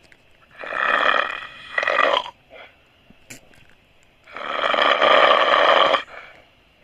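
A person snoring loudly: two long snores, each lasting nearly two seconds, the first about half a second in and the second about four seconds in, with quiet gaps between.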